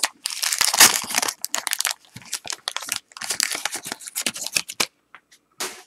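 Wax-paper wrapper of a 1989 Topps football card pack crinkling and tearing as it is peeled open by hand. The rustling comes in two long spells, then thins to a few scattered clicks near the end.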